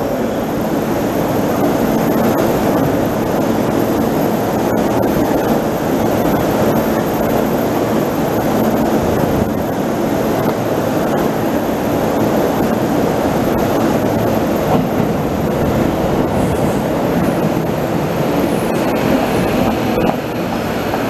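Tokyo Metro subway train pulling into an underground station platform: a steady, loud rumble of wheels and motors on the rails.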